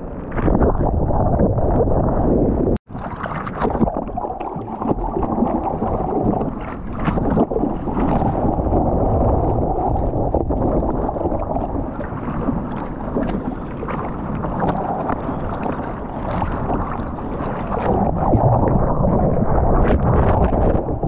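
Seawater splashing and sloshing right against a waterproofed action camera as a surfer paddles through choppy water, a steady loud wash with scattered splashes. Near the end a breaking wave pushes him under and the sound is the turbulent churn of whitewater.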